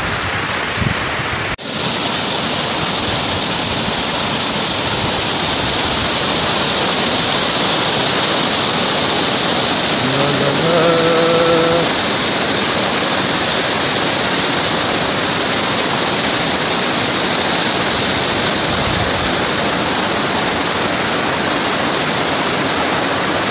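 Steady rush of a rocky mountain stream running over boulders, with a brief cut-out about a second and a half in. A short voice-like call sounds faintly about halfway through.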